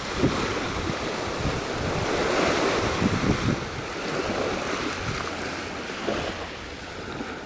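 Small waves washing up and breaking on a sand beach, with wind buffeting the microphone.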